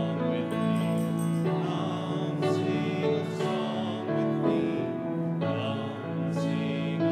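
Congregation singing a hymn together in unison, with held notes and an instrument accompanying.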